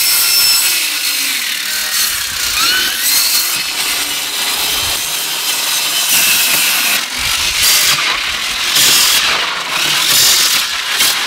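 Cordless power saw running and cutting through a cooked turkey on a table, a continuous noisy buzz that rises and falls as the blade bites into meat and bone.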